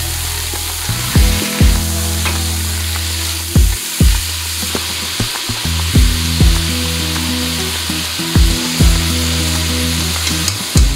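Mutton pieces sizzling in hot oil in an aluminium pressure cooker over a medium flame, stirred with a wooden spoon: a steady hiss. Background music with held bass notes and a pair of drum thumps about every two and a half seconds runs under it.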